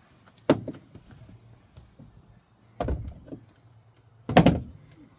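Clunks and knocks from bolting a dashboard onto a boat's console from underneath: three separate knocks, the last a quick rattle of several knocks and the loudest.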